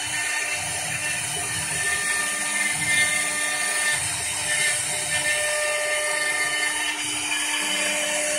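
CNC wood lathe with a carving spindle cutting a pattern into a turning wooden baluster. A steady high motor whine with cutting noise swells and fades every couple of seconds as the cutter works the wood.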